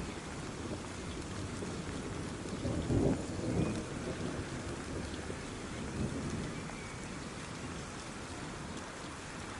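Steady rain falling, with a low rumble of distant thunder swelling about three seconds in and fading over the next second or so.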